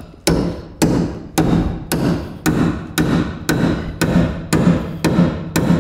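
Steady hammer blows, about two a second, driving a spot-weld chisel between the outer sill skin and the inner floor pan of a car body to chop through the spot welds. Each blow rings briefly in the sheet metal.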